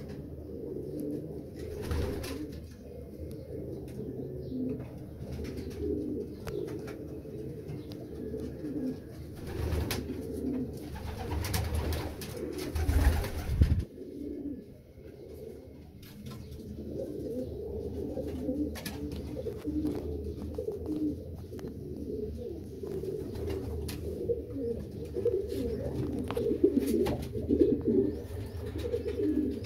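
A flock of racing pigeons cooing continuously, many overlapping calls at once. A few brief noisy bursts cut across the cooing, the loudest about 13 seconds in.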